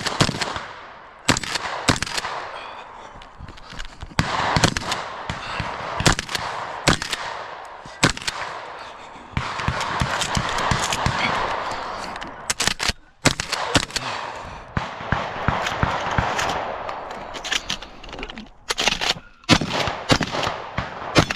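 Shotgun fired over and over during a practical-shooting stage run, the shots coming in irregular clusters with short pauses between them, each followed by a lingering echo.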